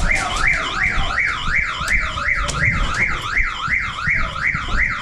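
Electronic siren sounding a yelping tone that rises and falls about three times a second, steady and unbroken.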